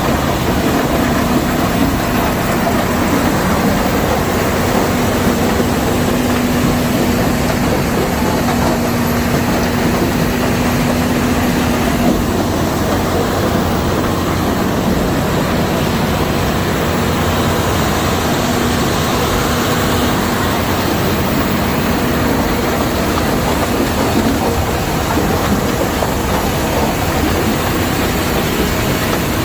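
Lippmann 4800R impact crusher plant running while crushing limestone, with a loud, steady mechanical din. A low steady hum runs under it and weakens about twelve seconds in.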